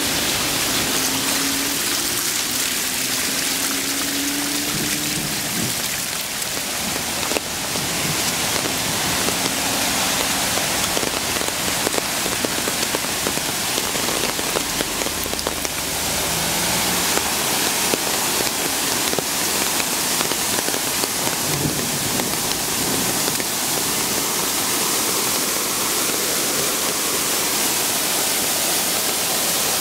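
Steady hiss of water after heavy rain: rainwater running and dripping, with a cascade of runoff close by near the end.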